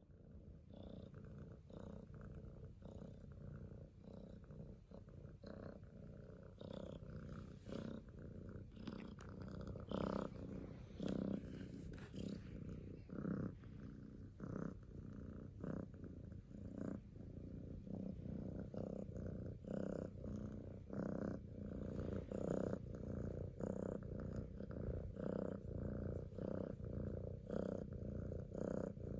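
Kitten purring: a steady low rumble that swells and eases with each breath, a little more than once a second.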